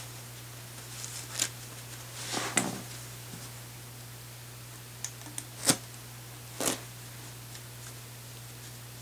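Handling noises from rifle parts and tools during a handguard install: a handful of brief clicks and rustles, the sharpest a little past halfway, over a steady low hum.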